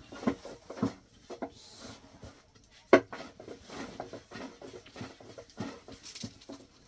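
Irregular knocks and clatter of objects being handled, the loudest a sharp knock about three seconds in.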